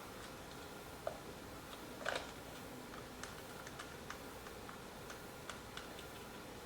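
Light plastic clicks and ticks from a toy remote control being handled and its battery compartment opened: a sharper click about two seconds in, then scattered faint ticks.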